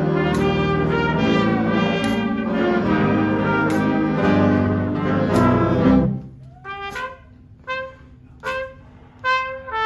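Jazz big band playing together, saxophones and brass sounding at once; about six seconds in the band drops out and a lone trumpet plays short unaccompanied phrases separated by brief gaps.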